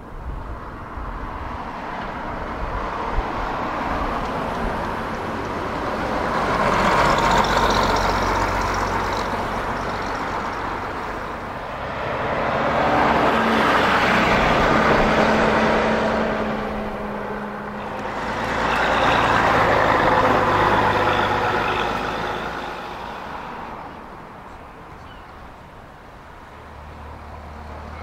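Preserved bus engines running, the sound swelling to three loud peaks about six seconds apart and then easing off.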